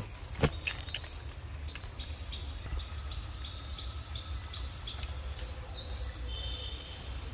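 Outdoor ambience: a steady high insect buzz with small birds chirping in short repeated notes, and a few sharp clicks, the loudest about half a second in.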